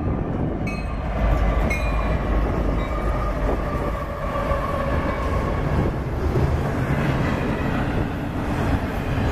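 Diesel-electric freight locomotives, EMD SD70ACe and GE ES44AC units, passing close by at speed with a steady low rumble, followed by double-stack container well cars rolling past on the rails.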